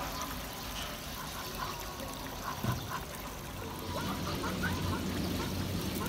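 Water trickling and sloshing in a shallow pond. About four seconds in, louder splashing sets in as a black swan bathes.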